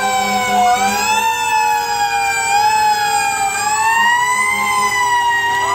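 Fire engine sirens wailing, several tones gliding slowly up and down and crossing one another.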